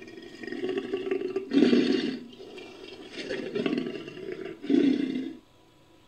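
Sound-effect roars of a Eurasian cave lion, mixed from recordings of lion calls. There are four rough calls in a row, the loudest about a second and a half in and near the end. They stop short about five and a half seconds in.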